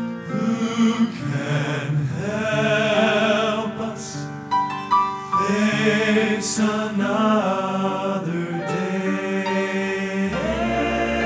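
Male gospel vocal quartet singing in close harmony, holding long notes with vibrato. Deep bass notes come in about ten seconds in.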